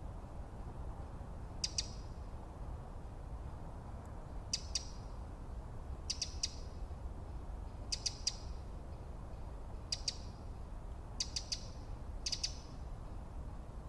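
A small bird giving short clusters of two to four quick, high chips every one to two seconds, seven times, over a steady low wind rumble.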